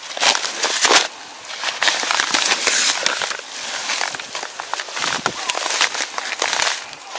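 Fertilizer sacks being handled and shifted, their bags crinkling and rustling in a run of noisy bursts, with two sharper crackles near the start.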